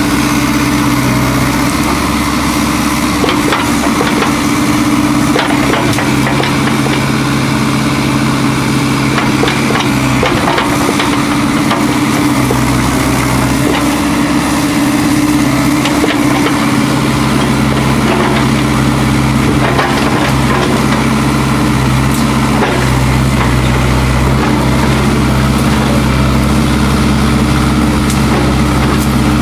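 Kubota U-45 mini excavator's diesel engine running steadily while the machine works, its note shifting for a while in the middle.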